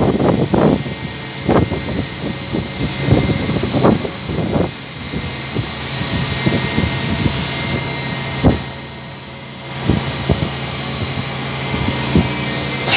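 Machine-shop noise: a steady mechanical hum with several high whining tones, broken by irregular knocks and clanks, thick in the first few seconds, then a sharp knock past the middle and another near the end, as metal tooling is handled at a CNC vertical mill.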